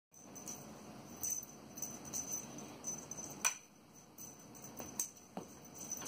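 A small jingle bell jingling in short, irregular shakes, with one sharp click about three and a half seconds in.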